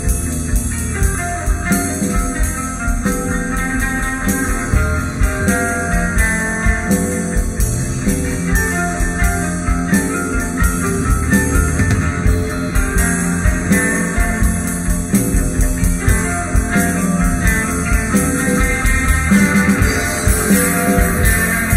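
Rock band playing an instrumental passage: guitar and bass over a drum kit keeping a steady beat.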